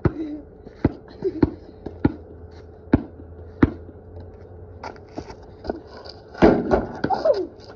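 A basketball bouncing on concrete: a run of sharp, irregularly spaced bounces about half a second to a second apart. A boy's voice breaks in briefly near the end.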